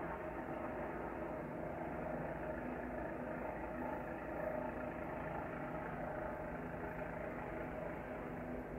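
Steady low background rumble with a faint hum, even throughout.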